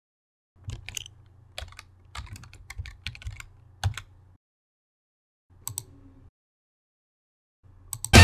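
Typing on a computer keyboard: an irregular run of key clicks for a few seconds, then a short pause and a few more brief clicks.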